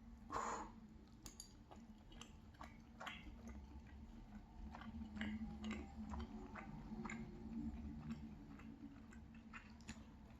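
Quiet chewing of a mouthful of cheese pancake, with soft wet mouth clicks scattered throughout.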